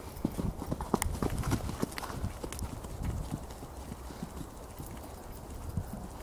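A pony's hooves beating on arena sand at a trot, a steady run of soft hoofbeats a few times a second.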